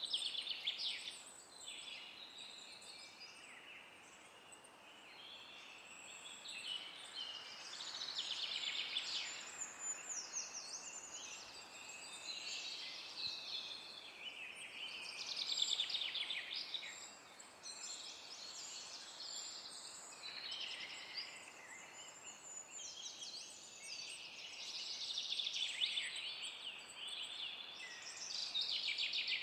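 Songbirds singing in repeated bursts of quick, high, downward-sweeping notes every few seconds, over a faint steady hiss of wind in the forest.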